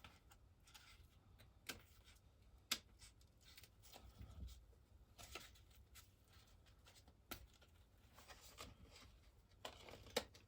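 Scissors snipping a thin cardboard gasket cut from a cereal box, trimming off the missed edges. Several faint, short snips and rustles come at irregular gaps, one sharper than the rest about three seconds in.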